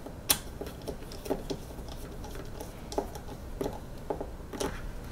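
Small screws being driven by hand into the plastic extruder housing of a Bambu Lab P1P 3D printer: a few faint, irregular clicks and ticks from the tool and screws.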